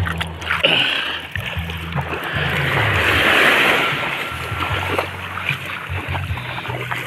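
Small sea waves lapping and washing up a sandy beach, the surf swelling loudest about halfway through and then easing.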